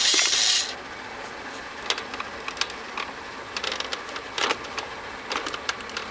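A short burst of hissing noise from the toy fire truck's sound effects cuts off within the first second. Then scattered plastic clicks and rattles as a hand works the toy's water-cannon turret and lever.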